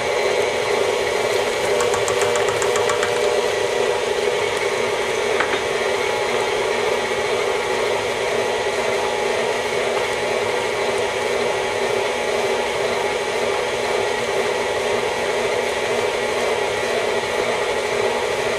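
KitchenAid stand mixer running steadily, its flat beater turning thick choux pastry dough in a stainless steel bowl as beaten egg is worked in. A few faint clicks sound about two seconds in.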